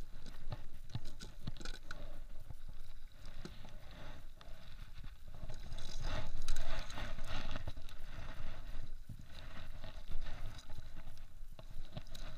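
Scattered clicks, rubs and scrapes of hands unhooking a freshly caught mackerel and its metal lure aboard a kayak, over a steady low rumble of water against the boat. A louder rustling stretch comes about six seconds in.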